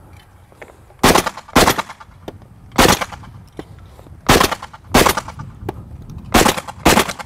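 Shotgun firing rapid shots at thrown clay targets: seven loud shots, mostly in pairs about half a second apart.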